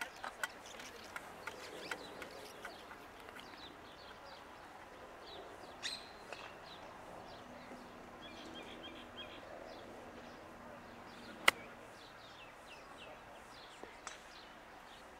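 Birds chirping in the background, with a single sharp click about three-quarters of the way through: a golf wedge striking the ball on a chip shot.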